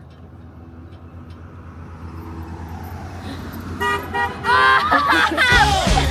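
A car approaches on the road and gives a short honk of its horn about four seconds in, followed by excited shouting. Rock music starts near the end.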